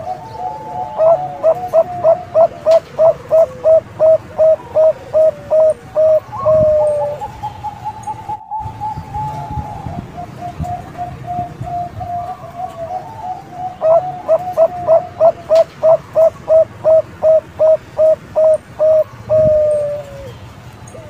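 Zebra dove of the Bangkok song strain (perkutut bangkok) cooing: two long runs of rapid staccato coos, about three a second, each ending in a longer drawn-out note, with softer coos between the runs.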